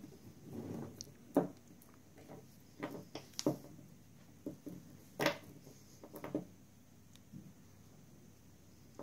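Scattered small clicks and taps of a strand of glass beads and its metal end piece being handled on a cloth-covered table, with a soft rustle of thread and fingers near the start.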